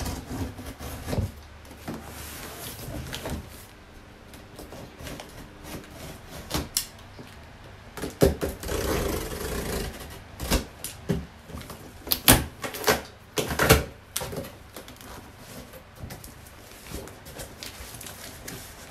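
Box cutter slitting the packing tape on a large cardboard box: an irregular run of scrapes, rustles and sharp clicks, loudest in the middle, with the cardboard flaps pulled open near the end.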